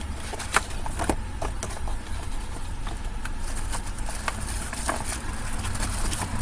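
Irregular light clicks and taps of a small plastic Bluetooth kit unit and its cable being handled, over a steady low rumble.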